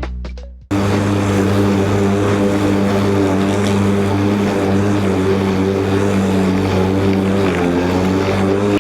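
Ryobi 40V cordless lawn mower running, its motor and spinning blade making a steady propeller-like hum with a slight dip in pitch near the end.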